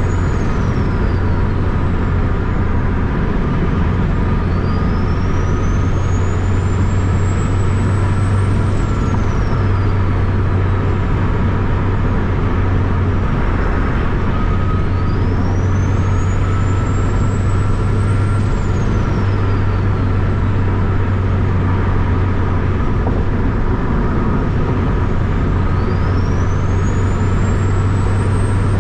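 Turbocharged 2007 Honda Accord's K-series four-cylinder running at a steady cruise: a constant low drone with road noise, heard from inside the cabin. A faint high whine rises over a few seconds and drops away, about every nine to ten seconds.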